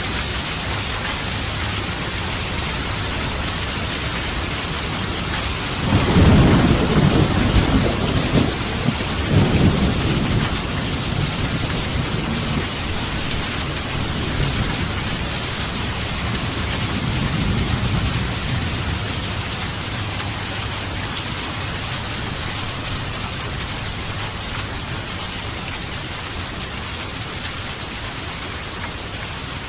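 Steady heavy rain with a clap of thunder about six seconds in that rolls on in low rumbles for several seconds, swelling again briefly a little later, then a fainter distant rumble.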